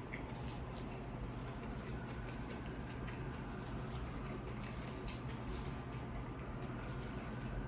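Chewing a sandwich close to the microphone: irregular soft mouth clicks and squishes over a steady low hum.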